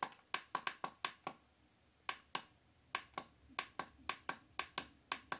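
Repeated presses of the dimmer/snooze button on a Holife digital alarm clock: about twenty sharp button clicks at an uneven pace, some in quick pairs, as the display is stepped through its brightness levels.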